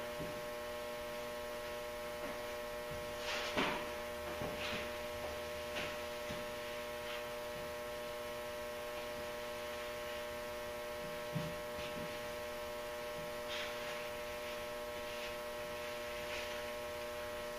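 Steady electrical mains hum, several even tones held at one pitch. A few faint brief noises break through it, the clearest about three and a half seconds in, and a small knock near the end.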